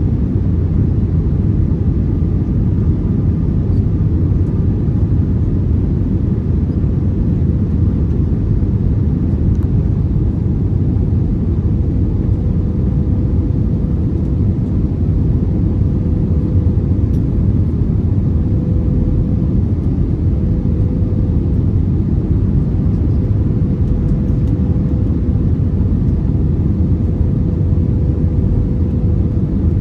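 Steady cabin noise inside an Airbus A321neo: a loud, even rumble of the jet engines and airflow, with a faint steady hum above it.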